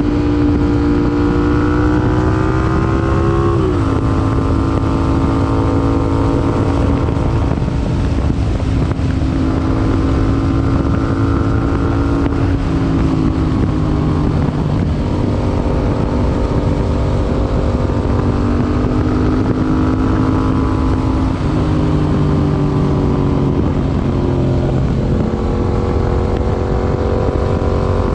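Yamaha MT-07's parallel-twin engine, breathing through an aftermarket IXIL IXRACE MK2 exhaust, running under way at steady revs. The pitch climbs a little and then drops sharply about four seconds in, as at an upshift, before holding fairly steady with slight rises and falls.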